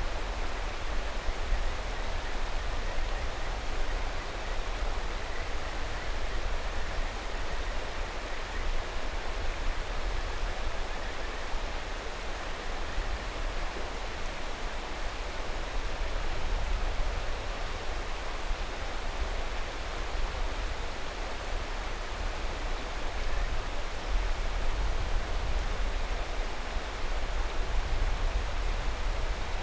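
Mountain river rushing steadily over rocks, a continuous even wash of flowing water.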